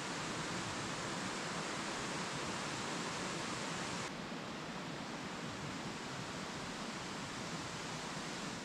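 Steady rushing of a shallow, rocky stream. The sound turns a little softer and duller about four seconds in.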